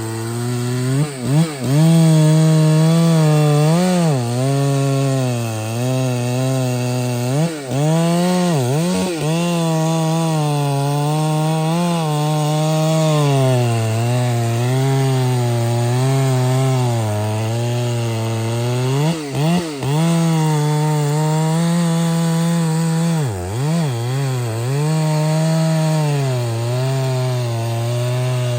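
Large two-stroke chainsaw cutting through a big tree trunk at high revs, its pitch sagging and recovering again and again as the chain bites into the wood.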